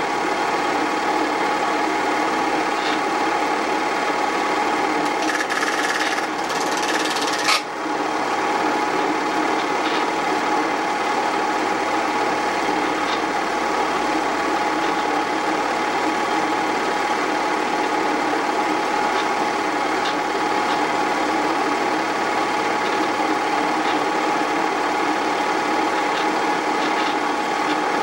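An 8mm film projector running, its motor whirring and the film transport clattering steadily, with a brief change about seven seconds in.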